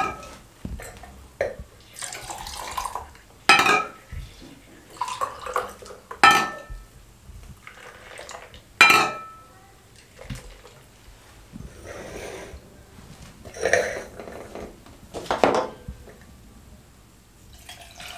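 A stainless steel ladle clinks against glass as grape juice is ladled from a glass bowl and poured over ice into wine glasses. There are three sharp, ringing metal-on-glass clinks, with the splashy pouring of juice between them.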